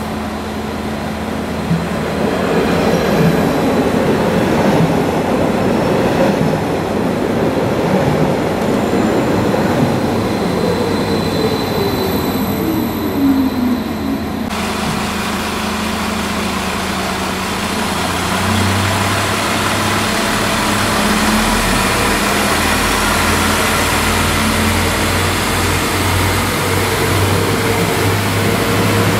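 An electric multiple unit running into a station platform: rail and running noise, with a motor whine that falls in pitch as it slows. About halfway through the sound changes abruptly, and a second regional train runs past on the next track with a steady low engine hum.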